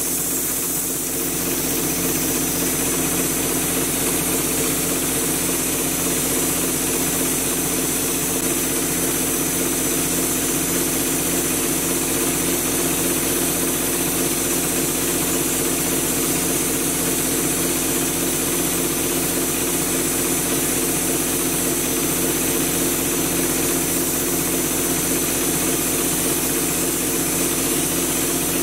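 Drywall hopper texture gun hissing steadily as compressed air sprays mud, over the constant hum of the air compressor that feeds it.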